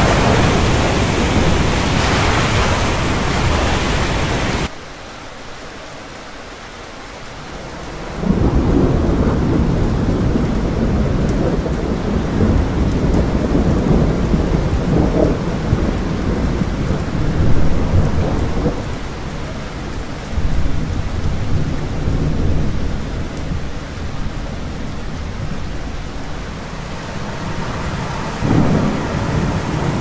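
Thunderstorm: heavy rain hissing under thunder, cutting off abruptly about five seconds in. After a few seconds of quieter low rumble, loud thunder breaks in and rolls on, with several louder peals.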